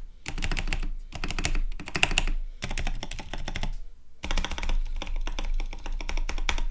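Typing in quick bursts on a Tecware Phantom mechanical keyboard modded with the tape mod, PE foam and O-rings. There are dense runs of key clicks with brief pauses between them.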